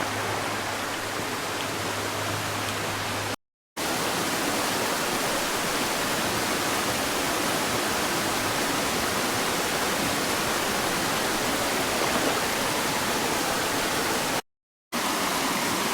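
Steady rushing of water from a waterfall and creek rapids, cutting out to silence twice for a moment.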